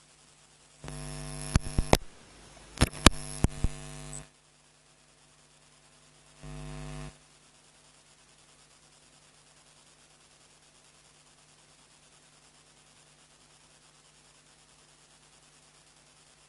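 Electrical mains hum from a faulty audio feed, cutting in for about three seconds about a second in with several sharp crackling pops, then again for under a second. The rest is near silence, with the speech missing from the recording.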